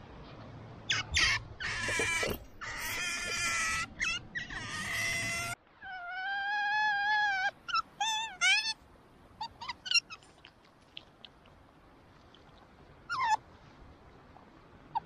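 Pet otter squealing and whining: rough, harsh squeals over the first few seconds, a long steady whine about six seconds in, then shorter wavering calls and a few faint squeaks, with one last short call near the end.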